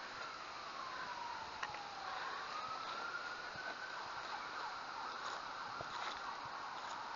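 Emergency-vehicle siren wailing, its pitch sliding slowly down, back up, and then gradually down again.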